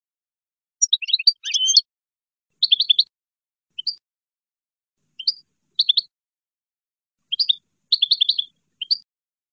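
European goldfinch singing: short phrases of quick, high twittering notes and slides, broken by pauses of up to a second and a half.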